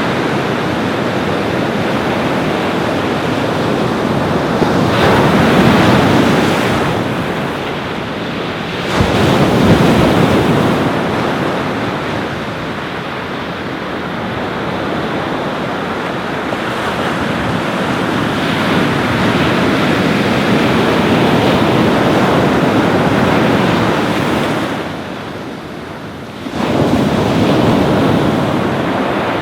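Ocean surf washing onto a beach: a continuous rush of breaking waves that swells and ebbs, with waves crashing in suddenly about nine seconds in and again near the end after a short lull. Wind buffets the microphone.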